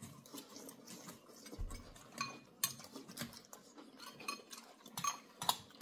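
Metal spoons clinking and tapping against glass cereal bowls: a scattered run of short, sharp clinks, some with a brief ring.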